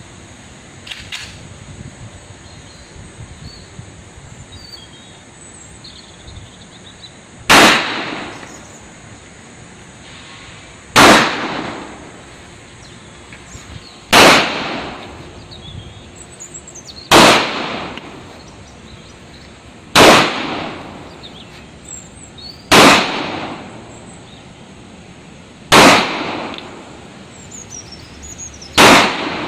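Eight pistol shots fired one at a time, roughly every three seconds, the first about seven seconds in. Each is a sharp report followed by a brief echo.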